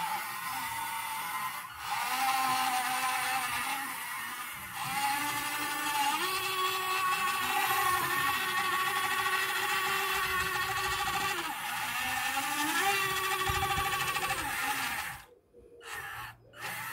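Remote-controlled CAT 320D model excavator's electric track drive motors and gearboxes whining while driving, the pitch rising and falling as the stick is moved. The whine cuts off suddenly about fifteen seconds in and comes back in two short spurts.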